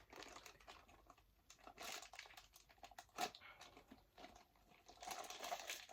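Faint rustling and crinkling as a boxed plastic model airplane and its packaging are handled, with one sharp click about three seconds in.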